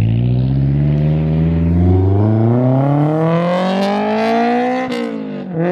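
Honda S2000's four-cylinder engine through a Tomei Expreme Ti single-exit cat-back exhaust, very loud, accelerating hard away. The pitch climbs steadily through one gear, then drops at an upshift about five seconds in and starts climbing again.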